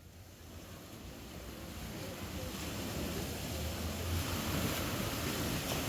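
Gentle surf washing onto the beach, with wind rumbling on the microphone, fading in over the first few seconds to a steady wash.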